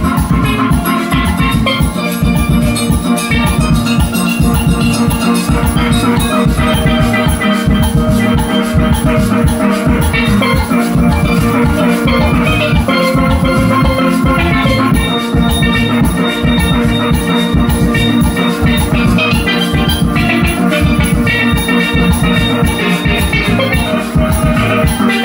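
Steel pan band playing a tune live, many pans ringing together over drums that keep a steady beat.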